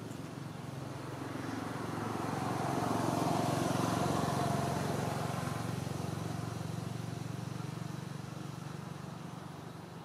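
A motor vehicle passing by: its engine noise swells to its loudest three or four seconds in, then slowly fades away.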